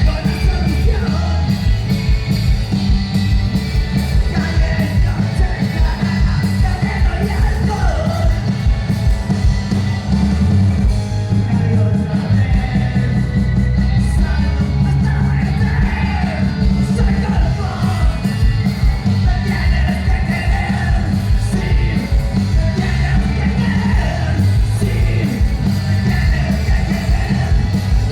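Rock band playing live: driving drums and heavy bass, with sung and shouted vocals.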